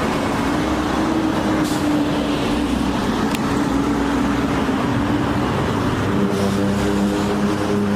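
Road traffic: a steady rumble of motor vehicles with an engine hum running through it, and a second, lower engine hum coming in about six seconds in.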